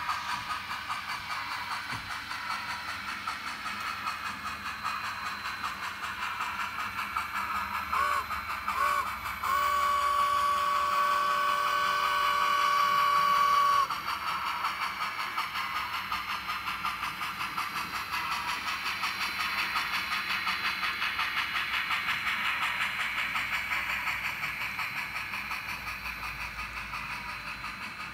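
Sound decoder (SoundTraxx Tsunami) in an N scale 2-6-0 Mogul steam locomotive model playing steady rhythmic steam exhaust chuffs through a small sugar-cube speaker in the tender. About eight seconds in, the whistle gives two short toots, then one long blast of about four seconds, with the chuffing going on under and after it.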